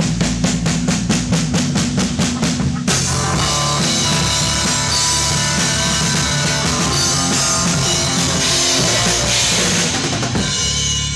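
Rock band of Sonor drum kit, bass guitar and electric guitar playing a song: it opens with a steady pulse of about six strokes a second with the bass and guitar on low notes, then about three seconds in the cymbals come in and the full band plays on loud, dropping off near the end.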